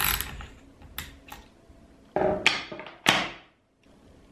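Socket ratchet wrench turning the air rifle's valve fitting loose, with a few sharp clicks and then two louder sounds that start suddenly and fade, about two and three seconds in.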